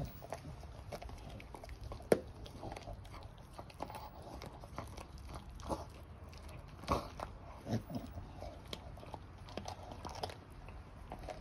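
Staffordshire bull terrier chewing a raw pork trotter: irregular wet crunches and cracks, with a single sharp crack about two seconds in.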